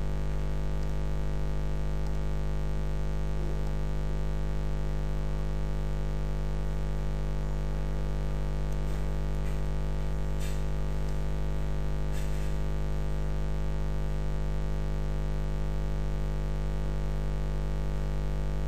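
Steady electrical mains hum with a buzz of many overtones, unchanging throughout, with a few faint clicks around the middle.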